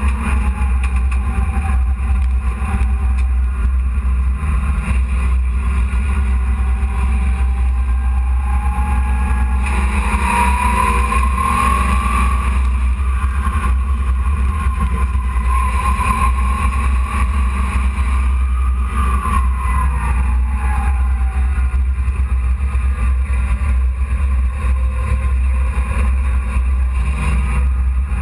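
A dirt-track hobby stock truck's engine heard from inside its cab, running under a deep steady rumble. From about ten seconds in, its pitch rises and falls for around ten seconds.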